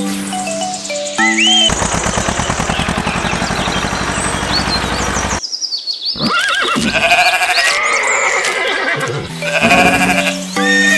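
Background music with farm-animal calls laid over it: a buzzy stretch through the first half, then several arching calls in the second half.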